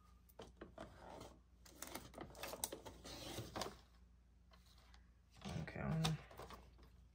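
Sliding paper trimmer cutting a laminated vellum sheet: light plastic clicks as the sheet and cutting head are set, then a scratchy, clicking rasp of about two seconds as the blade is run along the rail.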